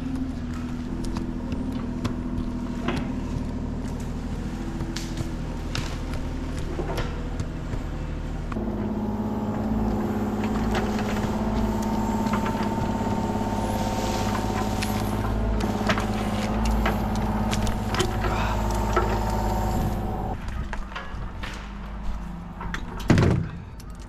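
An engine running steadily. Its pitch shifts and it gets louder about a third of the way in, then it falls away near the end. Scattered clicks run throughout, and a sharp knock comes shortly before the end.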